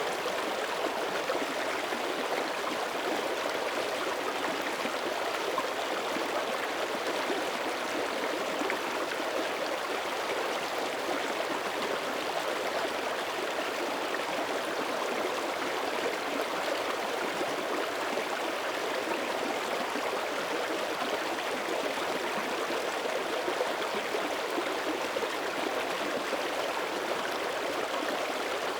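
Small mountain creek running steadily over rocks, an even rushing and burbling of flowing water.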